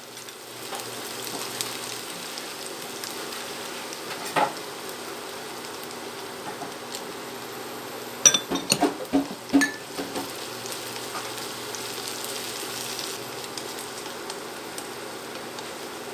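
Sliced onion and garlic sizzling steadily in oil in a frying pan. About four seconds in there is a single knock, and between eight and ten seconds in a quick cluster of sharp taps as wooden chopsticks stir against the pan.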